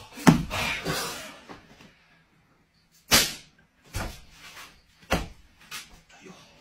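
A series of sharp thumps, about five of them roughly a second apart, following a louder noisy burst in the first second and a half.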